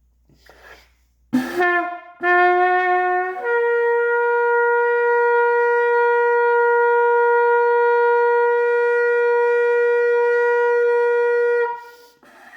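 Trumpet blown: two short notes stepping upward, then one long steady note held about eight seconds before it stops.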